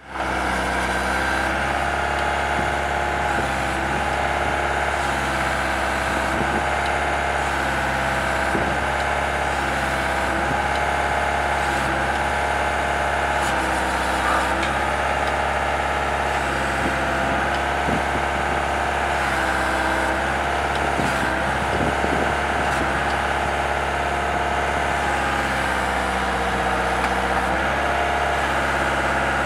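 Engine of a tracked solar-pile ramming machine running steadily, with its hum shifting in pitch now and then. The post is being positioned, and no pile is being hammered.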